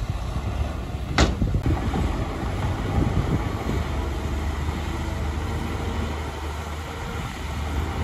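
Shantui DH17C2 bulldozer's diesel engine running steadily under load, with a single sharp knock about a second in.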